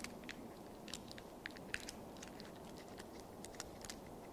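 Faint, irregular small clicks and crinkles of a small communion packet being handled and opened in the fingers, picked up close by a lapel microphone.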